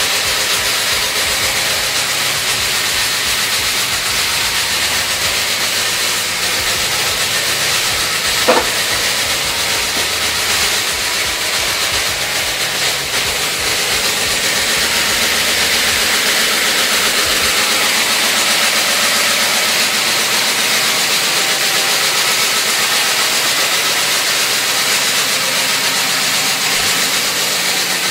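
Freshly rebuilt 383 Mopar big-block V8 idling steadily through Flowmaster 40 Series mufflers, heard mostly as an even, hiss-like rush. A brief click about eight and a half seconds in.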